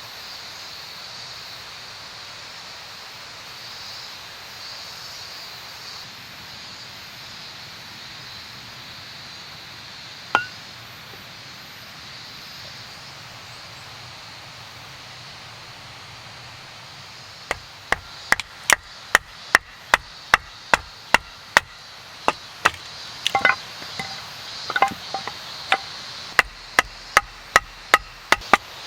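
Rhythmic chopping with a blade, sharp strokes about two a second, starting about seventeen seconds in. Before that there is only a steady outdoor hiss, broken by one click around ten seconds.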